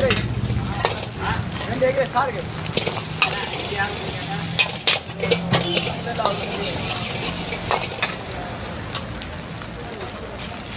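Egg sizzling and frying in a large black wok while a steel ladle and spatula stir it, scraping and clinking against the pan again and again over a steady sizzle.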